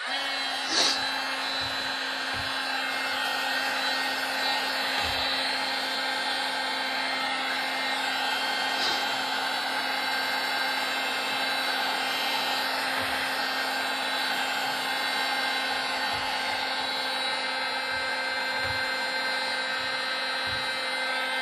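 Milwaukee M18 cordless heat gun running: a steady fan whir and rush of air with a constant hum, blowing hot air on a decal to soften its adhesive. A light click comes about a second in.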